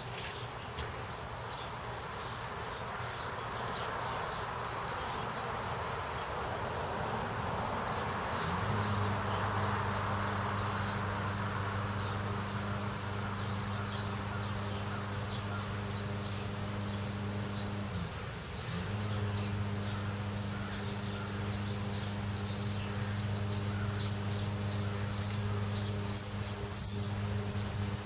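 Outdoor neighbourhood ambience: a passing car swells and fades over several seconds. About a third of the way in, a steady low hum sets in, drops out briefly about two-thirds through, then returns. A faint steady high hiss sits underneath.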